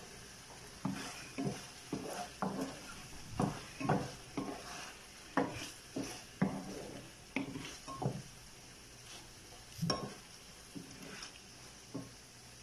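Wooden spatula stirring pork adobo in a nonstick frying pan: short scraping strokes against the pan, about two a second, then a pause and a few slower strokes near the end.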